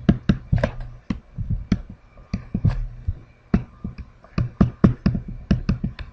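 Stylus tapping and stroking on a tablet screen while handwriting: irregular sharp clicks, about three a second, with a faint steady hum under them.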